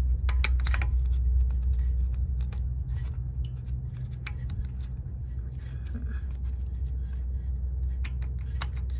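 Small clicks and light scraping of a replacement shift solenoid and its plastic plug being handled and seated in an automatic transmission's valve body, over a steady low rumble. The clicks come in a cluster at the start and again near the end.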